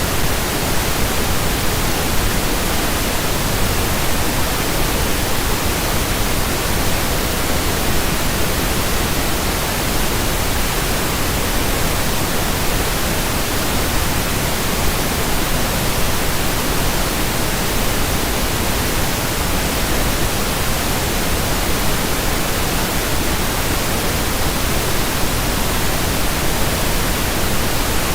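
Steady, unchanging pink noise: an even hiss spread across all pitches, with no events or variation.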